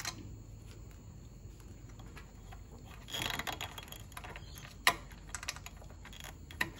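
Light metal handling sounds as a mower's toothed drive pulley is worked loose by hand: a short scraping rattle about three seconds in, then a sharp click near five seconds and a few lighter clicks.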